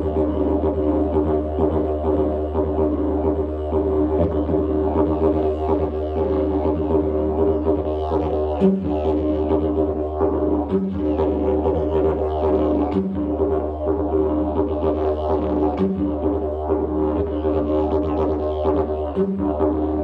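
Didgeridoo played in a continuous low drone with a stack of overtones above it. From about the middle on, the drone dips briefly about five times, every two to three seconds.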